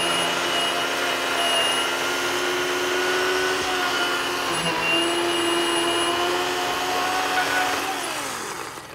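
Ryobi One+ 18V HP brushless 10-inch cordless chainsaw cutting through a tree stump: a steady electric motor whine with the chain rasping through the wood. Near the end the trigger is released and the motor winds down with falling pitch and stops.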